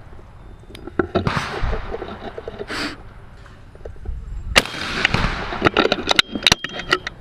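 Shotgun shots on a skeet range, the loudest a sharp report about four and a half seconds in, each trailing off in an echo. Near the end comes a quick run of metallic clicks as the Browning Citori 12-gauge over-under is broken open.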